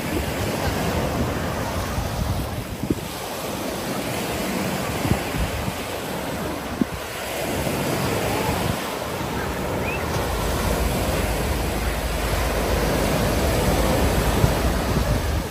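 Ocean surf washing onto the beach, with wind buffeting the microphone, more heavily in the second half.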